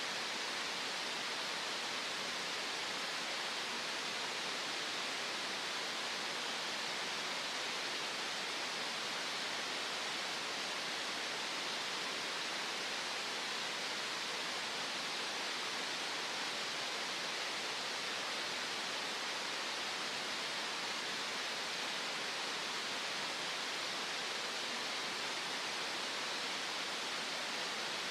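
Green noise: a steady, even hiss with no variation, weighted toward the middle and upper-middle range, with little deep bass or extreme treble.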